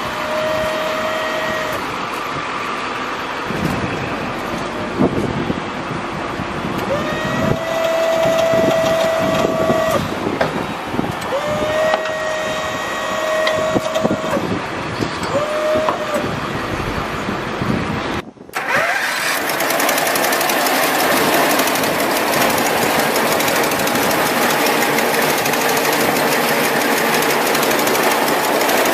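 Machinery on a service truck: a motor whines in several short on-and-off runs, each starting with a quick rise in pitch. Then, after a brief break about two-thirds of the way through, a louder small engine runs fast with a rapid, even clatter.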